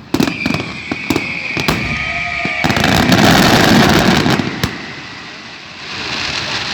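Aerial fireworks going off: sharp bangs with crackling and a steady high whistle over the first couple of seconds. About three seconds in comes a dense crackling rush, ending in one more bang, and then a softer rumble of bursts.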